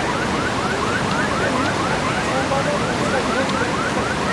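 A rapid, even series of short rising chirps, about five a second, over a steady rushing noise.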